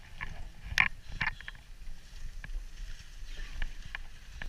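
Skis sliding over packed snow with a few sharp scraping clicks, the loudest about a second in, over a low rumble of wind on the microphone.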